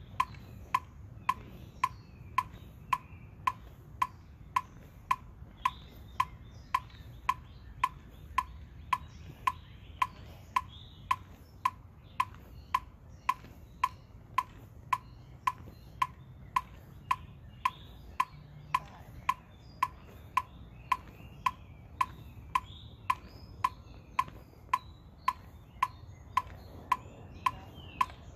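Electronic metronome clicking at a steady tempo, a little under one and a half beats a second, each click a short sharp beep.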